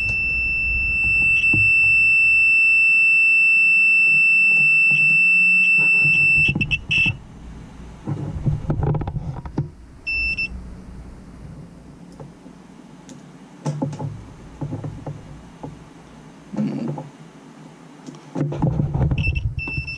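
A digital multimeter's beeper sounding one steady high-pitched tone for about seven seconds, cutting off, giving a short beep about ten seconds in, then beeping again in short bursts near the end, while the meter's test leads are handled. In between come light clicks and rattles of the probes and leads, part of checking whether the meter itself is faulty.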